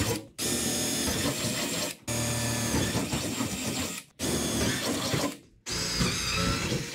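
Cordless drill running as it bores mounting holes through a plywood bench-seat panel: four runs of about one and a half to two seconds each, each stopping abruptly.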